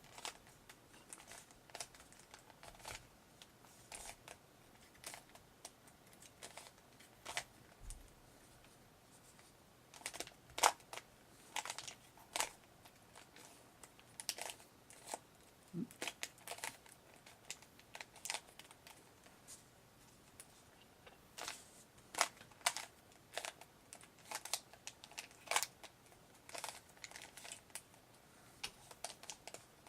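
Rubik's Cube being turned by hand: irregular plastic clicks and clacks as the layers snap round, single and in quick runs with short pauses between.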